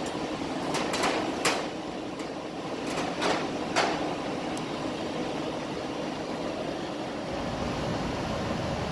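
Steady whirring hum of running fan or air-handling equipment, with a handful of short knocks and clicks in the first four seconds.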